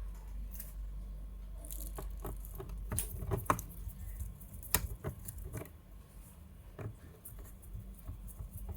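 Irregular light clicks and taps of hard objects being handled, with two sharper clicks about three and a half and nearly five seconds in, over a steady low hum.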